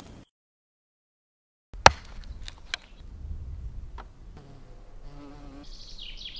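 An insect buzzing close by with a wavering drone, after a sharp click and a few fainter clicks. Near the end comes a high, falling chirp.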